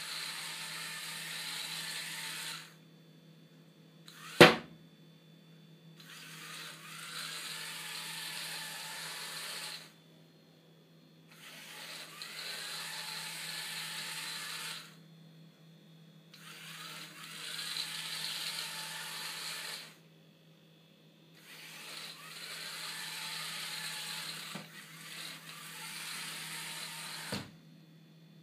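The robot's small yellow plastic-geared DC motors whir in runs of three to four seconds, each broken by a pause of about a second as it stops and turns away from obstacles. A single sharp knock comes about four seconds in, and a lighter one near the end.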